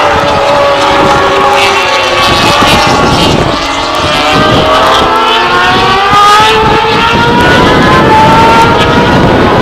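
Several superbike engines running at high revs together, their pitches climbing and dropping as they accelerate and shift.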